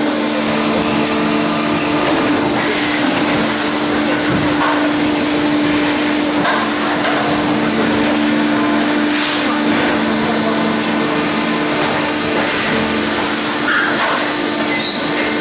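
Automated production cell running, with a Tecno Matic gantry robot working: a loud, steady machine hum with several held tones, and short hissing bursts every few seconds.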